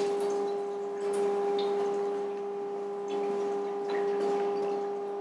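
A sink faucet shut off right at the start, then a steady hum with a few faint drips and light knocks as the rinsed dishwasher food basket is handled and set back in place.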